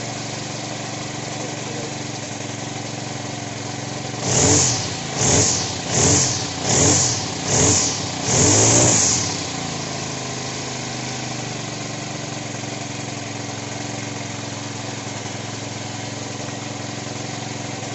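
Honda GX35 brush cutter's small single-cylinder four-stroke engine idling steadily after its repair, revved in six quick throttle blips about four seconds in, the last one held a little longer, then settling back to idle.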